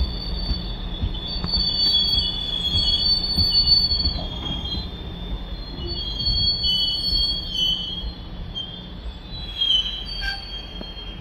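GO Transit bilevel passenger train rolling past with a wavering, high-pitched squeal from its steel wheels over a low rumble of the cars on the rails. A sharp click sounds about ten seconds in as the cab car passes.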